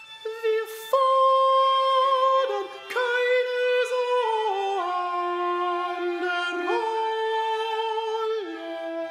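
Bowed strings of a chamber ensemble (violins and viola) playing slow, held notes in several parts that step downward in pitch. The music gets louder about a second in.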